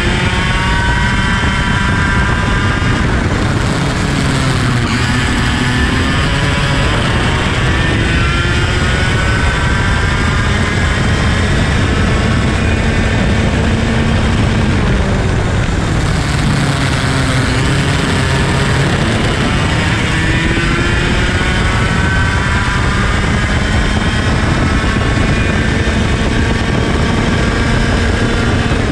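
IAME KA100 100cc two-stroke kart engine under hard throttle on a hot lap. Its pitch climbs slowly and then drops back several times over, as it runs through the straights and corners.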